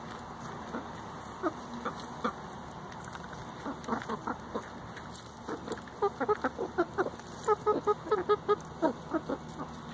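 Hens clucking in short, quick notes while dust bathing. The notes are scattered at first and come in a dense run from about six seconds in.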